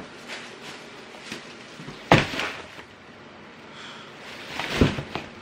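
Plastic shopping bags crinkling and being set down on a table, with two thuds, the louder about two seconds in and another near the end.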